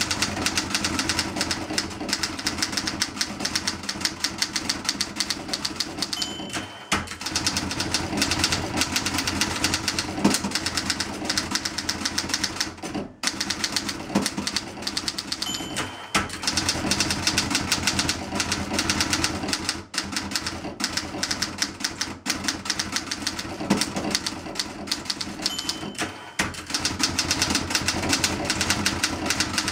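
1960 Olympia SG-1 standard manual typewriter being typed on fast: a rapid clatter of typebars striking the platen. Three times, about every ten seconds, the margin bell rings briefly near the end of a line, followed by a short pause for the carriage return.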